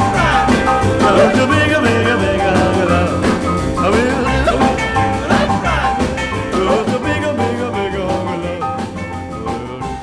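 Background rock and roll music with a steady band rhythm and no vocals, getting quieter over the last few seconds.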